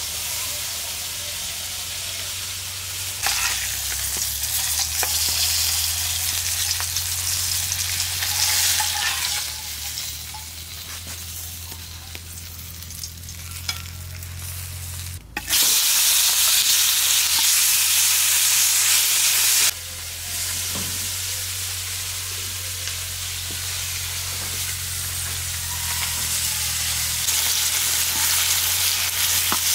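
Food frying in hot oil in a pan: a continuous sizzle with stirring. The sizzle changes level abruptly several times and is loudest for about four seconds near the middle, over a low steady hum.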